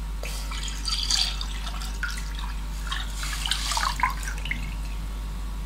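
Milk being poured into a steel pot of hot sugar syrup, splashing and gurgling in two spells.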